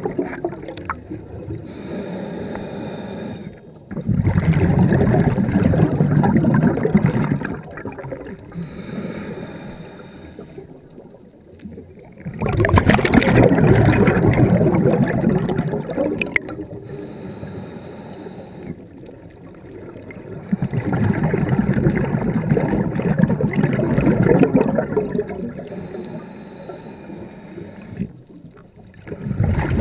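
Scuba regulator breathing underwater in slow cycles. A loud rush of exhaled bubbles lasts a few seconds and comes about every eight seconds, alternating with quieter inhalations through the regulator that carry a faint thin whistle.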